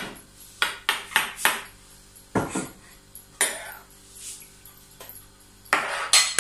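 Metal spoon clinking against a plate and tabletop: a string of sharp clinks with short ringing tails at irregular intervals, several close together about a second in and a cluster near the end.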